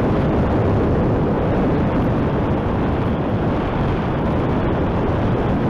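Steady, loud rush of wind buffeting a mountain bike's camera microphone on a fast descent, mixed with the rumble of the tyres on a dirt trail.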